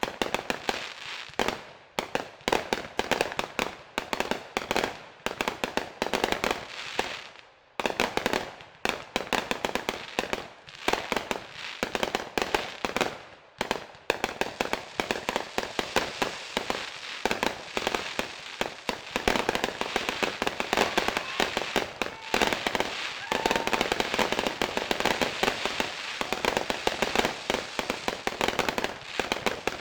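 Fireworks going off: a rapid run of sharp crackling pops and bangs, which thickens into an almost continuous crackle over the second half.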